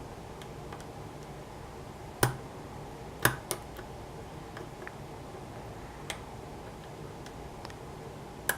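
Scattered small metallic clicks and ticks of a lock pick lifting pins in a pin-tumbler challenge lock held under a tension wrench, with a few louder clicks about two and three seconds in, over a steady low hum.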